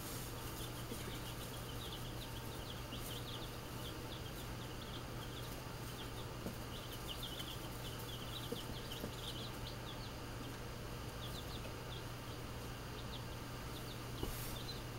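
Baby chicks peeping: many short, high cheeps that come in bunches, over a steady low hum.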